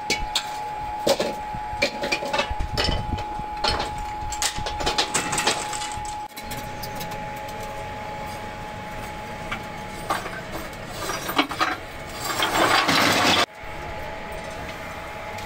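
Chunks of scrap metal castings clanking into a steel skip bucket as they are tossed in by hand: a quick run of sharp clinks and knocks. Further knocks follow, then a louder, noisier clatter of metal near the end that stops abruptly.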